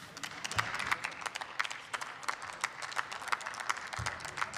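Scattered applause from a small group of people, the individual claps distinct and quick rather than merged into a roar.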